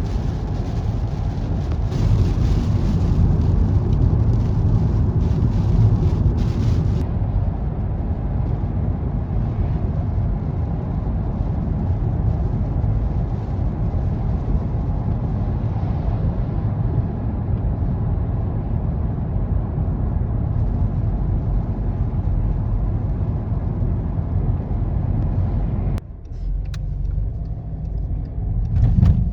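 Steady low rumble of a moving vehicle, with no speech. The sound changes abruptly about seven seconds in and again near the end.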